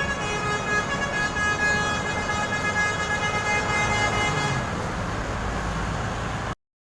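A bus's basuri multi-trumpet musical horn sounds a chord of several notes that change every second or so, and stops about five seconds in. Engine and traffic rumble is left under it until the sound cuts off suddenly.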